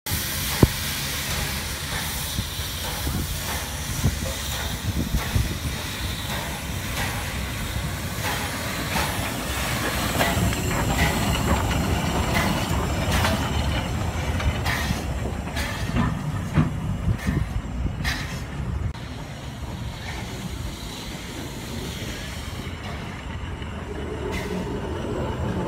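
SBB E 3/3 0-6-0 steam tank locomotive moving slowly, its steam hissing steadily over a low rumble, with scattered sharp clanks and knocks from the running gear and wheels on the rails.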